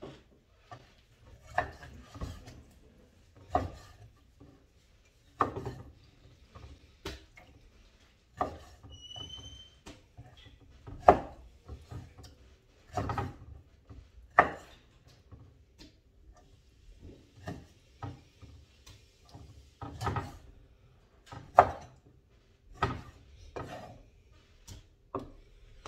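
Meat cleaver chopping raw meat and offal on a cutting board: about a dozen sharp, separate chops at irregular gaps of one to three seconds, with quieter knocks and scrapes between them. The loudest chop comes about eleven seconds in.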